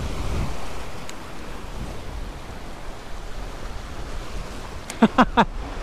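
Small waves washing and breaking against the stone blocks of a rock jetty, a steady rushing wash. About five seconds in, a quick run of three or four short pitched sounds cuts in over it.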